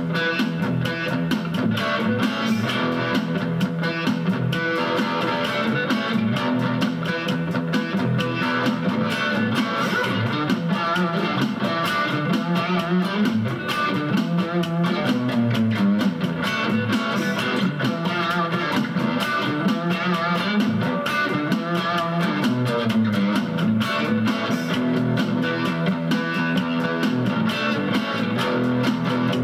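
Electric guitar with a Chinese Alnico pickup in the bridge position playing an instrumental tune, with low notes moving beneath the melody.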